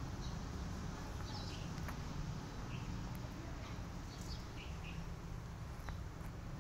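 Scattered short, high chirps of small birds over a steady low outdoor rumble.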